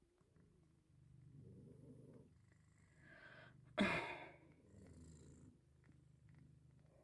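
Mother Persian cat purring while nursing her newborn kittens, with one brief, loud, sharp sound about four seconds in.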